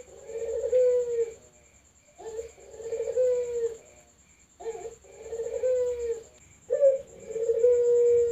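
Ringneck dove (burung puter) cooing: four drawn-out coos in a row, each about a second and a half long, falling in pitch at the end.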